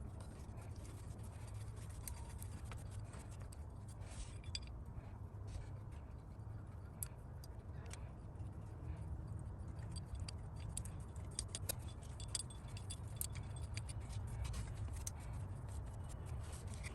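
Scattered light metallic clicks and clinks, irregular rather than rhythmic, of hand tools and parts being handled during car engine work, over a steady low rumble.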